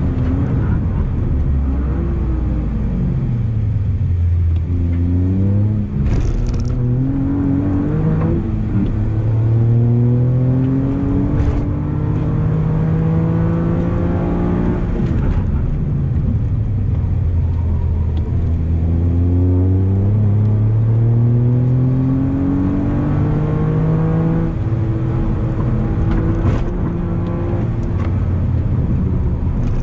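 Toyota GR Yaris's turbocharged 1.6-litre three-cylinder engine heard from inside the cabin under hard track driving, revving up to near 7000 rpm at full throttle, its pitch climbing and dropping sharply at gear changes, with spells off the throttle where the pitch falls away.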